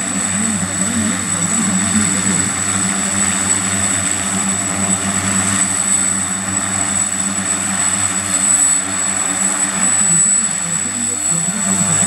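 The twin turboprop engines of an FMA IA-58 Pucará are running steadily with the aircraft standing on the ground. There is a high steady turbine whine over a low, wavering propeller drone.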